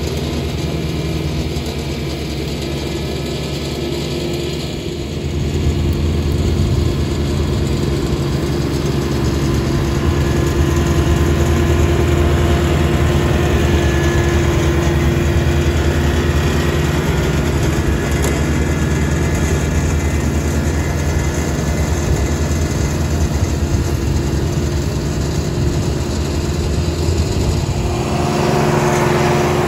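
John Deere 755 compact tractor's three-cylinder diesel running steadily under load while its finish mower cuts dry grass, getting louder about five seconds in as the tractor comes past.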